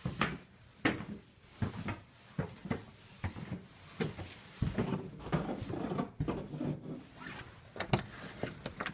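A series of irregular sharp knocks and clicks, one or two a second, mixed with rustling, as of things being handled.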